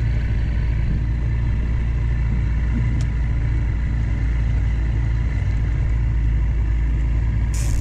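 Boat motor running steadily at trolling speed, a constant low hum and rumble. A short hiss starts right at the end.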